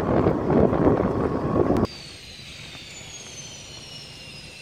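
Wind and road rumble from a ride in an open golf cart. About two seconds in it cuts abruptly to a much quieter scene with a faint, high jet-engine whine slowly falling in pitch.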